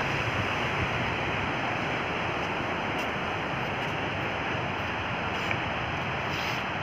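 Surf breaking and washing up a sandy beach, a steady even hiss, with some wind rumble on the microphone in the first second or so.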